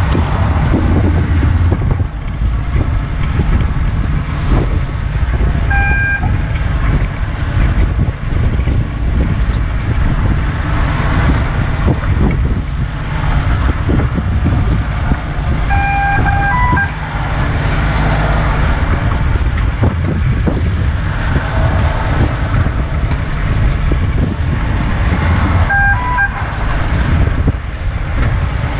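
Wind buffeting the microphone over the steady running of a fishing boat's engine, with a short electronic beep about every ten seconds.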